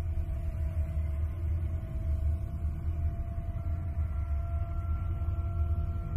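A 'sound of Io' space-audio track of the kind made by turning spacecraft radio and plasma-wave recordings into sound: a steady low rumble with a few faint held tones above it, and a higher tone coming in about three and a half seconds in.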